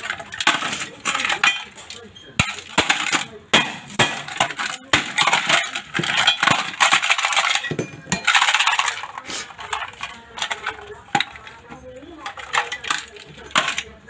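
Quick, irregular metallic clinks, knocks and scraping: hand tools working at a small mini welding machine being taken apart.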